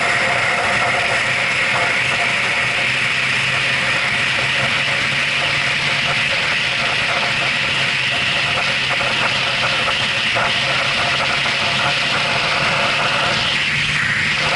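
Yamaha R6 inline-four sportbike engine running at a steady highway cruise, under a heavy rush of wind on a helmet-mounted camera. The engine note rises a little near the end.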